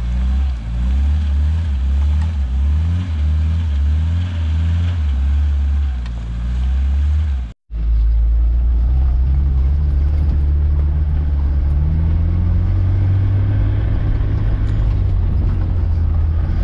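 Suzuki Samurai's engine revving up and down in quick repeated throttle bursts, about two a second, as the 4x4 works through deep mud. After a sudden cut, a steadier engine drone heard from inside an off-road 4x4's cab, rising a little in pitch partway through.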